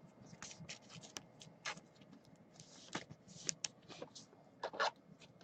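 Faint handling of trading cards and plastic card holders: soft slides, scrapes and light clicks, with a brief squeak near the end.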